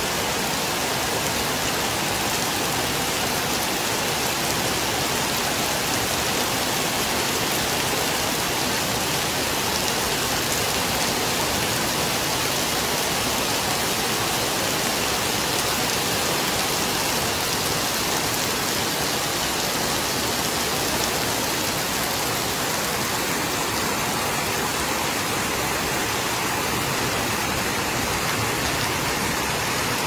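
Heavy rain falling in a steady downpour on metal roofs, trees and a wet paved yard.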